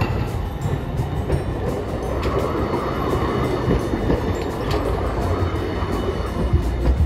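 A Hiroshima Electric Railway 1000-series Green Mover LEX low-floor tram runs past close by on a curve, a steady low rumble of its wheels on the rails, with light clicks as the wheels cross the junction's track crossings.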